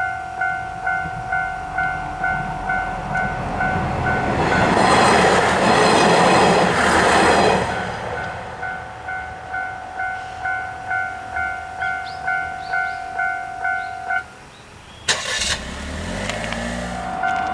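Japanese level-crossing warning bell clanging "kan-kan" about twice a second, while a train passes loudly over the crossing for about four seconds. Near the end the bell stops, there is a sharp click, and the bell starts up again.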